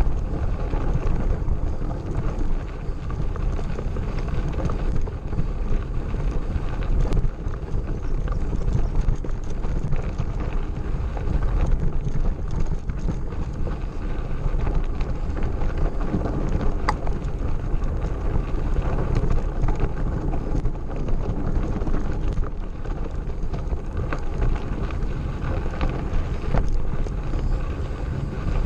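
Mountain bike rolling over a rough gravel forest road: tyre crunch and steady rattle of the bike, with scattered knocks, under wind buffeting the microphone.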